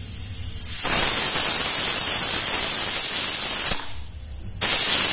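Pressure cooker whistling twice as steam vents through its weight valve. A softer hiss leads in, then comes a loud steady steam hiss lasting about three seconds, which stops, and a second loud blast starts near the end. The two whistles are the count she set for the dal to be cooked.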